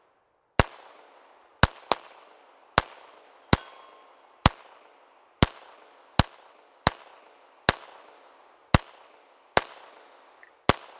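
Beretta M9A1 .22 LR pistol firing thirteen shots at a steady pace of about one a second, with one quick double near the start. A faint high ring of steel targets being hit follows several of the shots.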